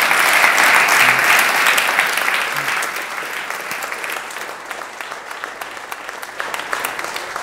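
Audience applauding, loudest in the first two seconds, then thinning out into scattered individual claps.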